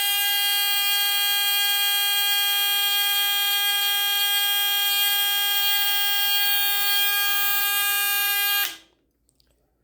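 Fire alarm buzzer on a pull station circuit sounding one steady buzzing tone, set off by the pull station being pulled. It cuts off suddenly near the end, silenced by the board's switch.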